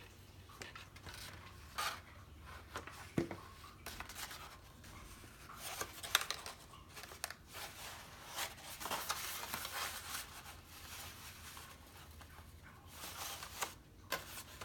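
Faint rustling, scraping and light taps of paper being handled, as a paper rose petal is positioned and pressed into place on the flower's base.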